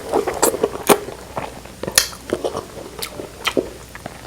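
A person biting and chewing crunchy food close to the microphone, a run of sharp irregular crunches and smacks.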